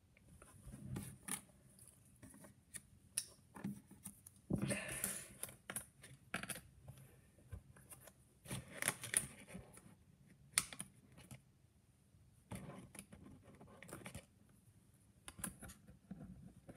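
Small plastic puzzle pieces clicking and scraping against each other in the hands as they are tried together, in scattered clusters of sharp clicks and short scratches. The pieces do not fit.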